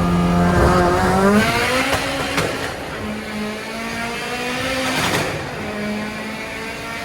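Turbocharged car engine revving. Its pitch climbs about a second in, two short bursts of noise come about two and a half and five seconds in, and it then settles to a steadier, lower note near the end.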